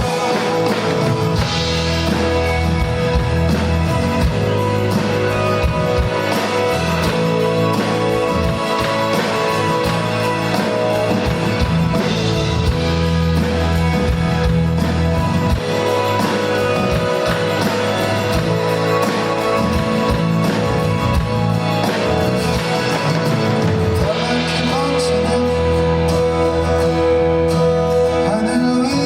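Live band music in the middle of a pop ballad, with guitar and a male singer's vocals, recorded from the audience.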